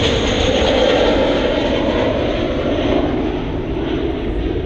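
Jet airliner engines heard from beside the runway: a loud, steady rushing noise that eases slightly after about three seconds.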